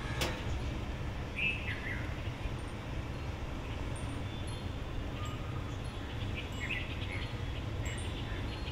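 Red-vented bulbul calling: a couple of short chirping notes about a second and a half in, then a quick run of notes near the end, over a steady low background rumble. A sharp click sounds right at the start.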